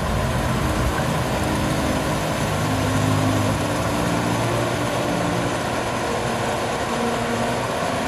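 Deutz-Fahr Topliner combine harvester working close by as it cuts wheat: a steady engine note under the dense noise of the header and threshing machinery.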